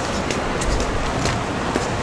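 Busy city street ambience: a steady low rumble with scattered light clicks.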